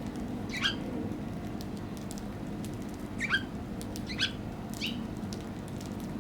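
A garden bird calling four times: short, sharply rising calls, the first about half a second in and three more close together near the middle.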